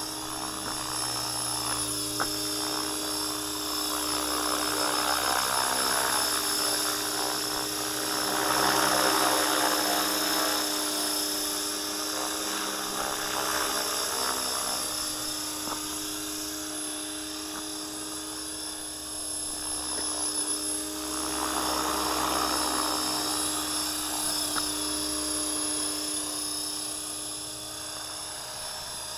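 Align T-Rex 500 electric radio-controlled helicopter flying, its motor and rotor giving a steady high whine with a whooshing rush that swells twice, about nine and twenty-two seconds in.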